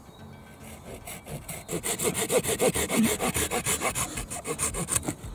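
Hand pruning saw cutting through a wooden branch fork, quick back-and-forth strokes about five a second, starting about a second in and stopping abruptly just before the end.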